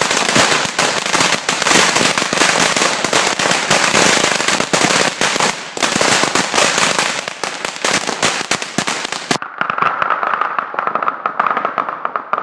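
A 100,000-shot firecracker string going off as one dense, continuous rattle of rapid bangs. About nine seconds in it abruptly turns lighter and thinner, with scattered crackling going on.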